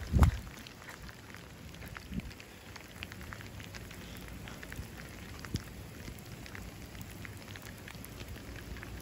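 Heavy rain in a downpour: a steady hiss scattered with many small drop ticks. A single thump comes right at the start.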